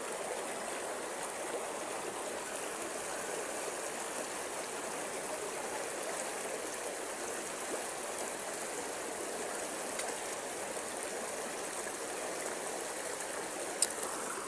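Stream water flowing steadily, with one sharp click shortly before the end.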